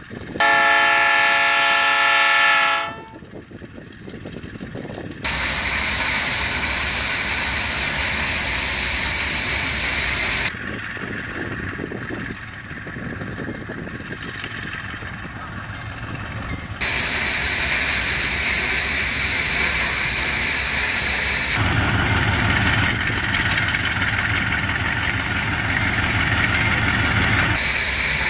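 Locomotive horn sounding once for about two and a half seconds near the start, the loudest sound. It is followed by steady engine and wind noise that changes abruptly at several cuts, with a low engine hum in the later part.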